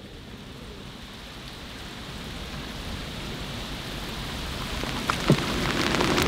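Heavy rain falling on a river's surface: a steady hiss that grows louder, with two short knocks near the end.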